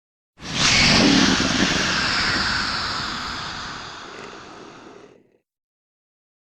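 Fantasy monster sound effect of the kind made for a dragon or sea serpent: a single loud, rushing call that starts suddenly about half a second in, sinks slightly in pitch and fades out over about five seconds.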